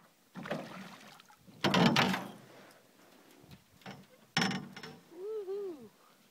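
Loud knocks and clatter in an aluminum boat, four of them, the loudest about two seconds in, while a northern pike is being landed and a stick is swung. Near the end comes a short two-note call that rises and falls twice.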